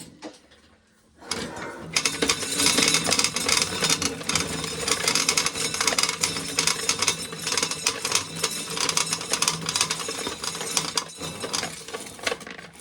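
Corn sheller shelling an ear of corn: a dense, continuous mechanical rattling clatter that starts about a second in and thins out near the end.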